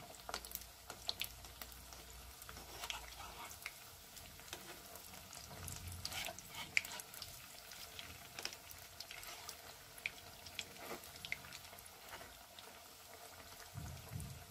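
Hot oil sizzling and popping around breadcrumb-coated paneer cheese balls deep-frying in a kadhai. A metal spatula now and then moves and turns them in the oil.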